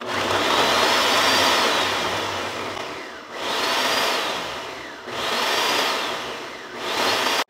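Ninja countertop blender running at high speed, grinding fried dried chiles, peanuts and sesame seeds in oil into salsa macha. The motor whine starts suddenly, then rises and falls in three surges, about 3 and 5 seconds in, and cuts off abruptly at the end.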